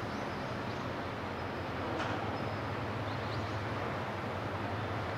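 Steady low drone of a RORO cargo ship's diesel engines as the ship passes close by, over a continuous rushing noise.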